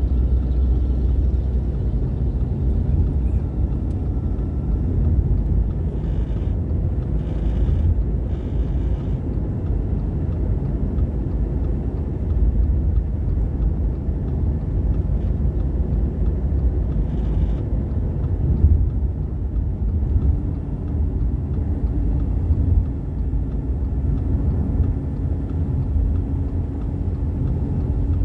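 Steady low rumble of engine and tyre road noise heard from inside a moving car's cabin.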